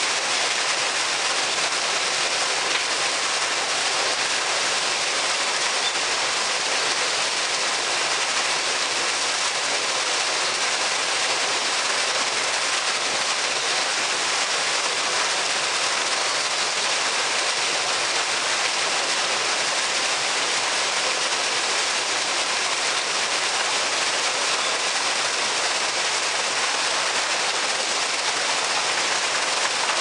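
Artificial waterfall: a single stream of water falling from a spout into a shallow stone pool, splashing with a steady, even rush.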